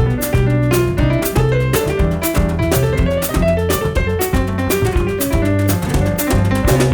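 Jazz piano trio playing live: piano, bass and drum kit in a Cape jazz tune with a goema rhythm, the drums keeping a steady beat under the piano.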